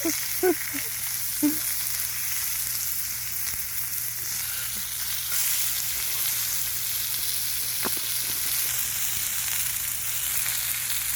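Steady sizzling hiss of food frying, with a single sharp tick about eight seconds in.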